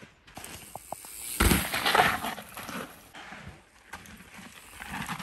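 Mountain bike ridden past on a dirt jump trail, its tyres rushing over the packed dirt. A few faint clicks come first, then a sudden burst of tyre noise about a second and a half in that fades within about two seconds; it rises again near the end.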